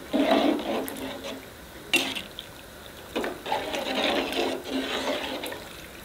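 Metal ladle stirring a large pot of thin, watery biryani masala, the liquid sloshing and swishing in two spells, with a sharp knock of the ladle against the pot about two seconds in.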